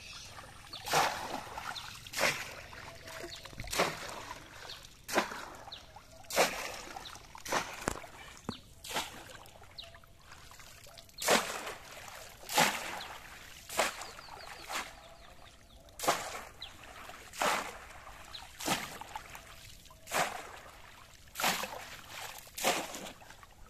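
Bamboo polo fish trap plunged again and again into waist-deep pond water, a sharp splash about every second and a quarter, with a short pause about ten seconds in.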